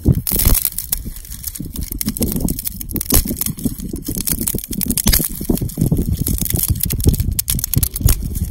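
Dry grass and thin twigs rustling and crackling as hands gather them and press them into a tinder bundle, with many irregular sharp snaps and crackles.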